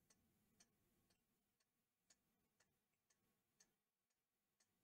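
Near silence with a very faint, regular ticking, about two ticks a second.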